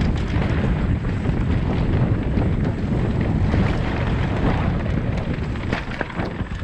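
Wind buffeting the camera microphone over the rumble of mountain bike tyres rolling fast on a loose gravel and stone trail, with scattered clicks and rattles from the bike over the rough ground.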